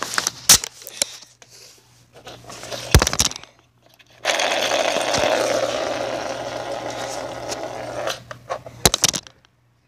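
Clicks and knocks of the spinner's pieces being handled, then about four seconds in a homemade fidget spinner starts whirring on its ball bearing, a steady rough whirr that fades a little and stops abruptly about eight seconds in.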